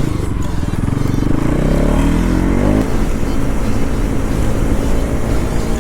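Bajaj Pulsar NS 200's single-cylinder engine accelerating, its pitch rising for about three seconds. The pitch then drops at what sounds like an upshift, and the riding sound carries on rougher and noisier.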